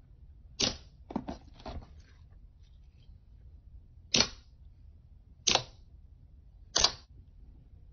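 Fingers pressing into thick, glossy slime, making short wet pops: one about half a second in, a quick run of smaller ones soon after, then three single pops a little over a second apart.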